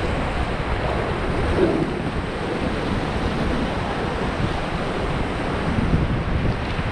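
Rushing whitewater of the Beas river running steadily around the raft, with wind buffeting the microphone.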